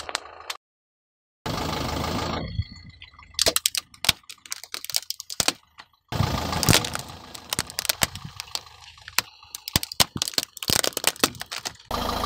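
Car tyre rolling over bubble wrap, popping it in dense crackles, then, after a short break, crushing a plastic computer keyboard with loud cracks and snapping plastic, the loudest crack a little after the break. A steady low rumble of the car sits under the first part.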